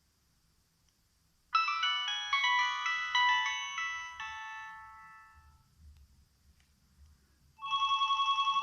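Nokia 6103 mobile phone speaker playing ringtones. About a second and a half in, a quick cascade of overlapping notes rings on and fades away over a few seconds. Near the end a second ringtone starts, a fast pulsing trill.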